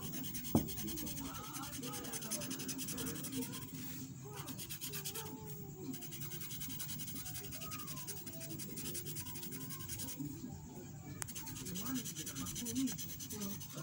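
Felt-tip marker scribbling rapidly back and forth on paper while colouring in a shape, stopping briefly a few times between stretches of strokes.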